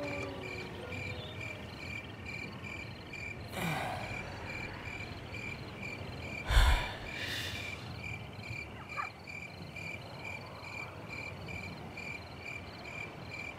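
Crickets chirping, a steady evenly pulsing high chirp under the night ambience. About three and a half seconds in comes a short rush of noise, and about halfway through a sudden low thud with a hiss, the loudest sound.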